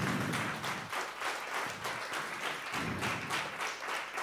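Small audience applauding, a dense steady clapping of many hands.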